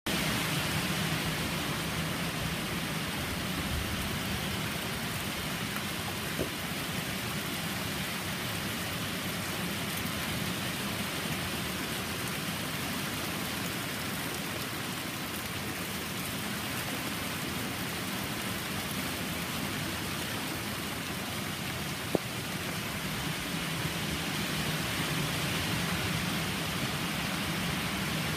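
Steady rain falling, a constant hiss of water. Two brief knocks stand out, a small one early and a sharper one about three-quarters of the way through.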